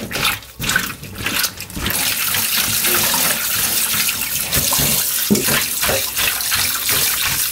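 Wet handling and light knocks of hands working chicken gizzards in a stainless steel bowl, then from about two seconds in a kitchen tap running steadily into the bowl and sink, rinsing flour off the gizzards.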